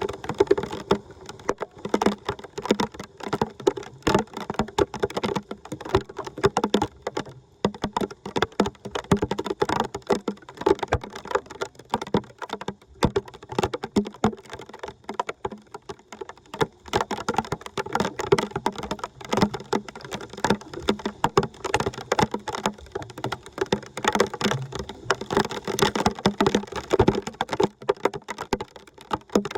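Dense, irregular tapping and clattering: many small knocks a second, going on steadily.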